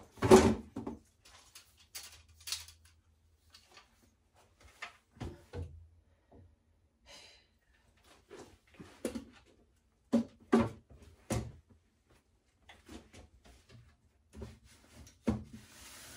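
Scattered knocks and clunks of a long-handled reach-grabber tool and the items it handles bumping on a high cabinet shelf, with three louder clunks about ten seconds in.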